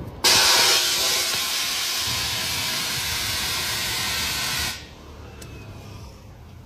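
Compressed air hissing loudly from an air-hose chuck at the valve of a truck inner tube as the tube is inflated; it starts suddenly and cuts off after about four and a half seconds.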